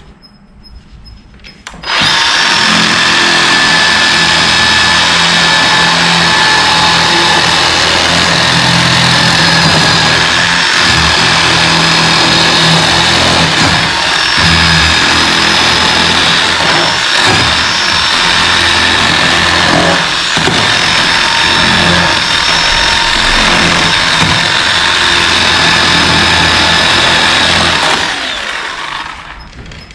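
Bauer cordless battery chainsaw running at full speed, cutting into the boat's wooden transom. It starts abruptly about two seconds in, dips briefly a few times as the chain loads in the wood, and spins down near the end.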